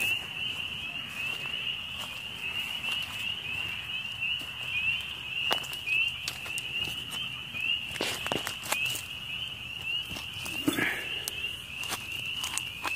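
Chorus of spring peepers: many short rising peeps at one high pitch overlapping without a break. A few sharp crackles and snaps cut through it, the loudest about two-thirds of the way in.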